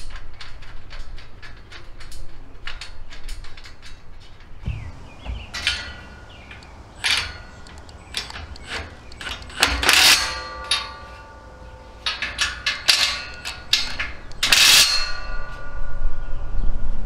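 Steel strut-channel frame being bolted together: a run of quick metallic clicks, then short bursts from a cordless driver running bolts into the strut nuts. Each burst is followed by the steel channel ringing, with clinks and clangs of metal in between.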